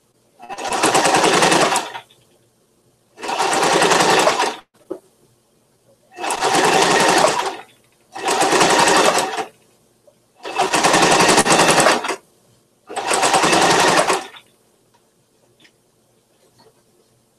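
Electric domestic sewing machine stitching in six short runs of about a second and a half each, the motor speeding up at the start of each run, with brief pauses between runs.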